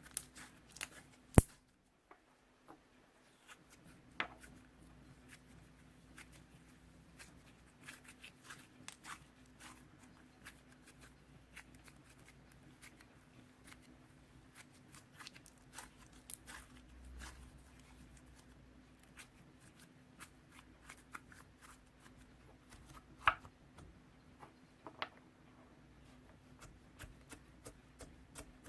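Slime being squeezed and stretched by hand, giving a run of small crackles and clicks with a few louder snaps, about a second in, around four seconds in and near the three-quarter mark.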